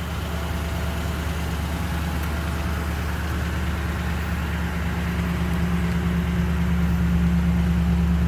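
Vehicle engine idling with a steady low hum, growing slightly louder toward the end.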